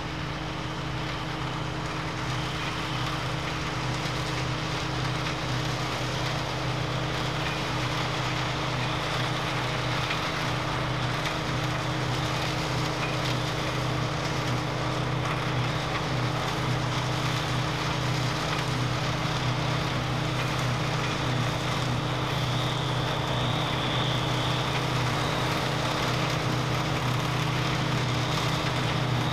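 Claas Dominator 98 SL combine harvester running steadily under load, its engine hum mixed with the even rush of the threshing machinery, growing slowly louder.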